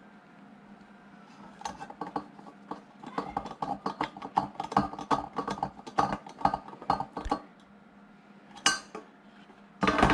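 Small hard parts of a ceiling fan light fixture being handled, clicking and clinking rapidly and unevenly from about one and a half seconds in, then two sharper clatters near the end.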